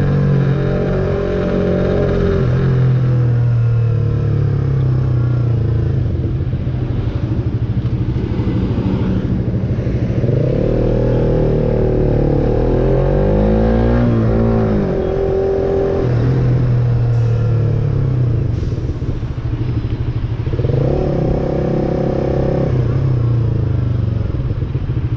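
Suzuki motorcycle engine running through an aftermarket exhaust in its quiet mode, with the sound-reducing insert fitted. The tone is low and subtle, and the revs rise and fall several times.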